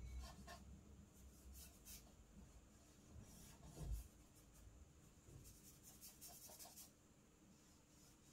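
Charcoal stick scratching on drawing paper in faint, short strokes, with a soft low thump about four seconds in.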